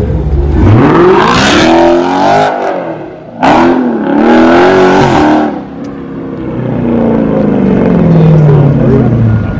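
Dodge Charger's engine revving hard in rising and falling surges while it spins donuts, tyres screeching loudly in two long stretches. In the second half the revs settle and the car pulls away, its engine note rising and then falling off.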